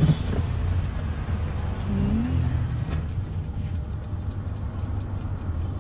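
Electronic countdown beeps of a bomb-timer sound effect, one high tone repeating faster and faster, from under one a second to several a second near the end. Underneath runs the low rumble of a moving car's cabin.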